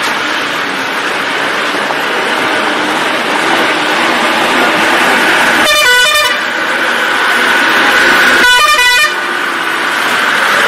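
A truck's horn honks twice, about six seconds in and again about eight and a half seconds in, each blast under a second long with several tones sounding together, over a steady rushing noise.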